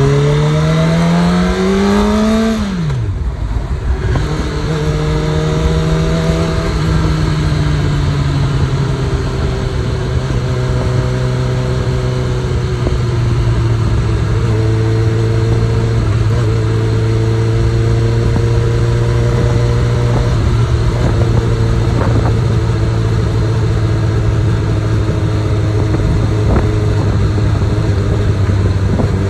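Honda CB1000R's inline-four engine heard from the rider's seat, revving up under acceleration for about two and a half seconds, then falling sharply in pitch about three seconds in. It then runs at a low, steady pitch while cruising at low speed in second gear.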